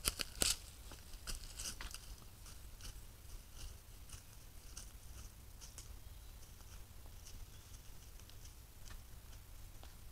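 Red deer stepping and foraging in dry forest leaf litter: soft crunches and rustles, two louder ones in the first half second as a deer passes close by, then scattered light clicks.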